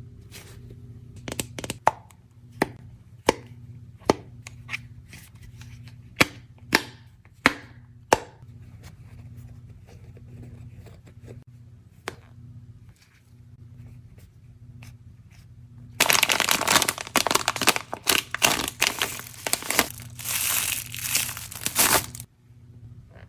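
Plastic sweet and chocolate wrappers being handled and opened: scattered sharp crackles and clicks at first, then several seconds of loud crinkling and tearing of wrapper about two-thirds of the way in. A steady low hum runs underneath.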